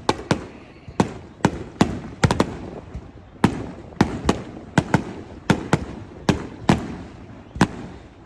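Fireworks grand finale: aerial shells bursting in quick succession, about twenty sharp bangs at two to three a second, with rumbling echo filling the gaps between them.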